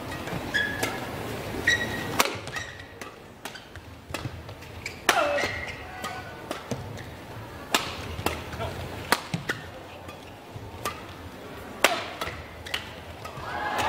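Badminton doubles rally: a string of sharp racket hits on the shuttlecock at irregular intervals, with short squeaks of court shoes between shots.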